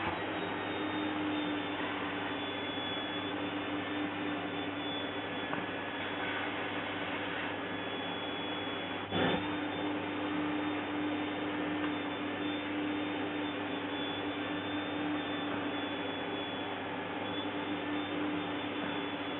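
Vacuum cleaner running steadily with an even motor hum, and a single brief knock about nine seconds in.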